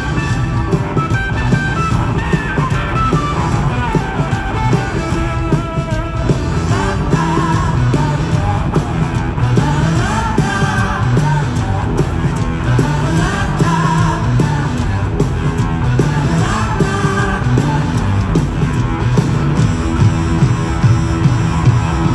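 Live rock band playing loudly: electric guitars over a steady drum beat and bass, heard from the crowd.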